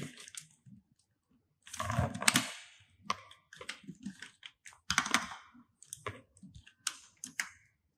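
Computer keyboard keys tapped in an irregular run of separate clicks, with a denser cluster about two seconds in.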